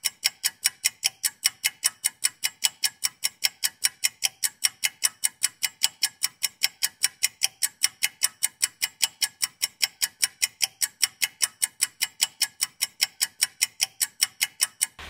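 Clock-ticking sound effect: sharp, evenly spaced ticks, a little over four a second, with dead silence between them.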